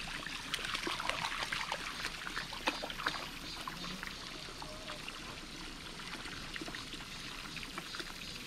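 Water trickling from a garden hose into a pool, a steady wash of running water. Through the first few seconds, light splashes of a Boston terrier's paws wading in the shallow water.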